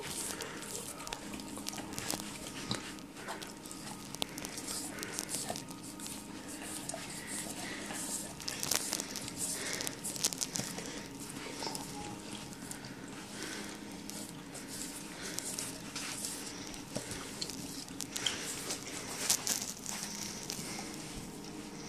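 German shepherd licking and lapping at a frozen ice lolly: a continuous run of wet tongue smacks and slurps, busiest around the middle and again near the end.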